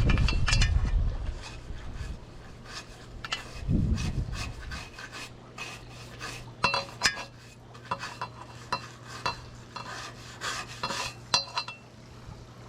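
A brush scrubbing and scraping dirt out of a pool enclosure screen frame's spline track, in many irregular short strokes. A steady low hum sits underneath from about four seconds in.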